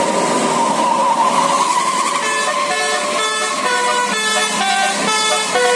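A bus's basuri telolet horn playing a quick tune of short, clear notes that starts about two seconds in. Before it comes a loud, noisy rush with one held tone.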